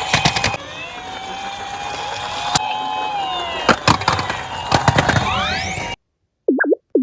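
Emergency-vehicle sirens wailing, two overlapping and rising and falling, over sharp clacks of toy minicars rolling and knocking down a slope, with a quick rising sweep about five seconds in. The sirens cut off abruptly at about six seconds, and short plucked music notes follow about twice a second.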